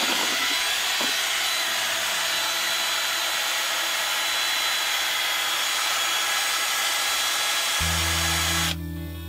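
Cordless drill with a paddle mixer running steadily, stirring a bucket of thick exterior latex paint; it stops suddenly near the end.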